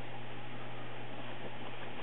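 Steady hiss with a constant low hum, unchanging throughout; no distinct sound from the cat or the tissue box stands out.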